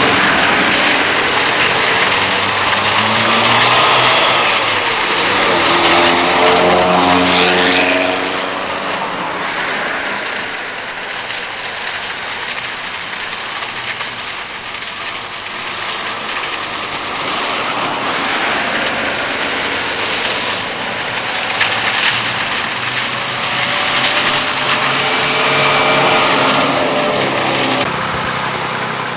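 An engine running, its pitch shifting up and down a few times, over a steady rushing noise.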